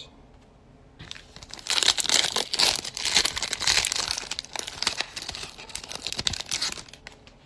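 Foil wrapper of a Panini Select basketball card pack being torn open and crinkled by hand: a dense crackling rustle that starts about a second in, is loudest for the next few seconds, and dies away near the end.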